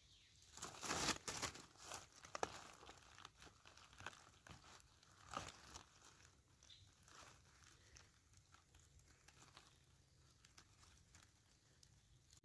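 Quiet crinkling and crackling of dry leaves and twigs on the forest floor being disturbed. It comes in irregular bursts that are densest in the first couple of seconds and thin out toward the end.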